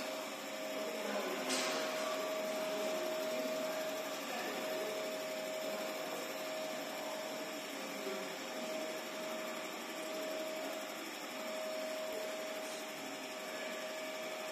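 Machinery running steadily: a constant whine over an even noise, with a brief knock about a second and a half in.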